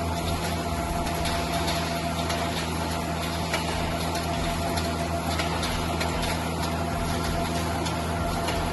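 Steel-mesh wire drawing, ribbing and straightening machine running: a steady low hum with a few constant tones and scattered light ticks.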